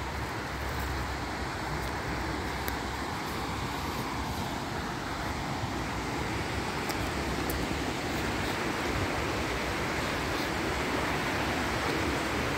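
Mountain stream rushing over rocks: a steady noise of running water that slowly grows a little louder.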